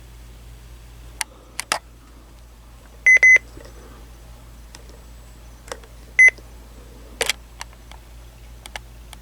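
Electronic device beeping: two quick high-pitched beeps about three seconds in and a single beep about three seconds later, among scattered sharp clicks, over a steady low electrical hum.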